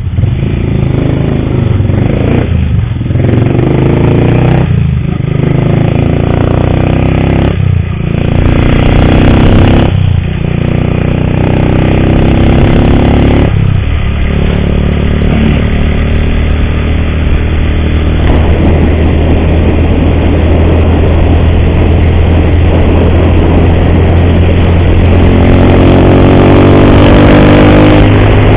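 Motorcycle engine pulling away through the gears, dropping out briefly at each of about five shifts in the first 14 seconds, then running steadily at speed. The engine carries a loud mechanical noise that the rider puts down to a worn cam chain.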